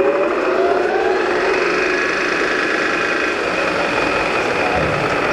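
ACRA-TURN gap-bed engine lathe spindle running at a high speed, a loud steady mechanical whirr with gear whine. The whine is still rising in pitch over the first second as the spindle finishes coming up to speed, then holds steady.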